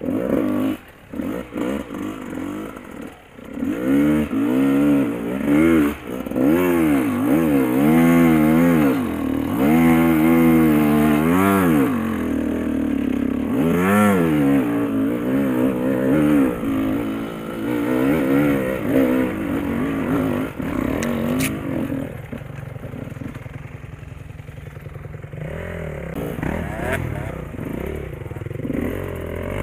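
Enduro dirt bike engine revving up and down again and again as it is ridden over a rocky trail, with stones clattering. For the last several seconds it runs lower and steadier.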